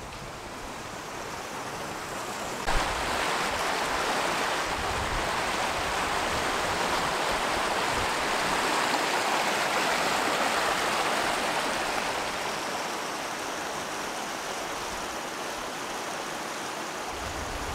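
Small mountain stream running over rocks, a steady rush of water. It comes in suddenly about three seconds in, is loudest midway and eases off toward the end.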